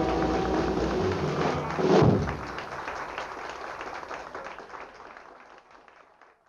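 The close of a live bebop jazz piece: the alto saxophone's held notes end in the first second, a final drum hit lands about two seconds in, and the band's sound then fades out to silence.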